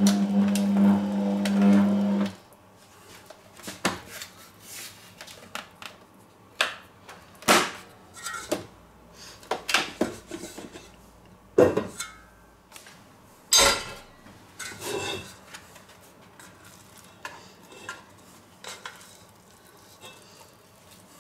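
Electric stand mixer kneading dough with a steady motor hum, switched off about two seconds in. After that, scattered clinks and knocks of the stainless steel mixing bowl as the dough is worked out of it by hand.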